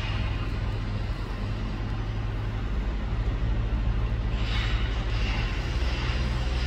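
Steady low rumble of heavy engines from construction machinery and traffic. From about four seconds in, a rushing noise rises over it.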